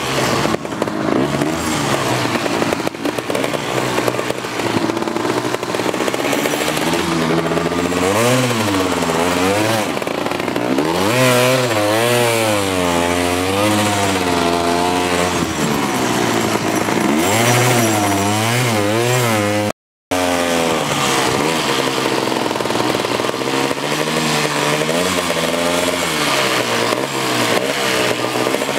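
ATV (four-wheeler) engine running while being ridden, its pitch rising and falling again and again with the throttle. The sound cuts out for a moment about twenty seconds in.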